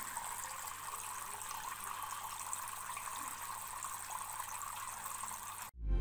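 Many thin streams of water falling and splashing into a shallow tray of water in a small homemade plastic-bottle waterfall fountain, a steady trickle. It cuts off suddenly near the end and music begins.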